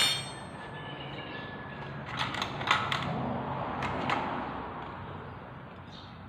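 Metal clinks and clicks of hand tools and engine parts being handled during motorcycle engine work: one sharp ringing clink at the start, then a few lighter clicks a couple of seconds later.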